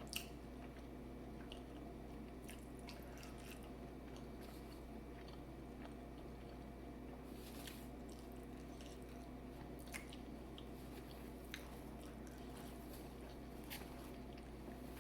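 Person eating seafood boil, chewing with scattered small clicks and smacks, over a steady low hum.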